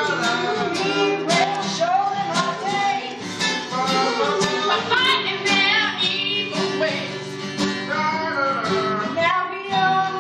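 A song with strummed acoustic guitar and a singing voice.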